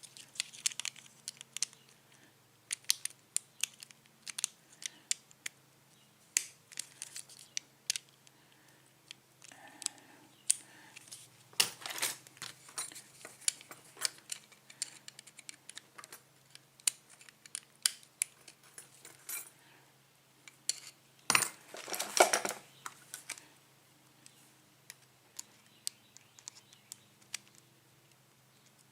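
Small metal tools clicking and scraping against a lock cylinder while prying at its retaining clip, in irregular sharp clicks with a few longer, louder scrapes.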